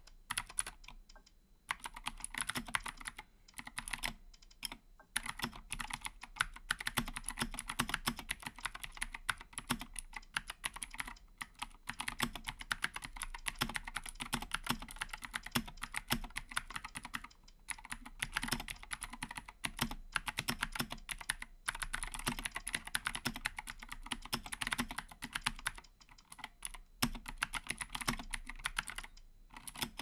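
Keychron K2 mechanical keyboard being typed on at a fast pace: a dense run of key clacks, with a few short breaks in the typing.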